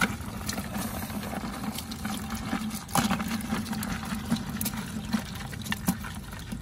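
Water draining and dripping from a woven bamboo crab trap into a plastic bucket as the trap is tipped and shaken out, with a few sharp knocks of the trap against the bucket, the loudest about three seconds in. A low steady hum runs underneath.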